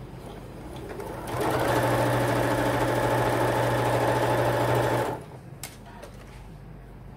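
Electric sewing machine stitching a quarter-inch seam through two layers of cotton patchwork fabric. It starts about a second in, runs at a steady speed for about four seconds, then stops, and a single click follows.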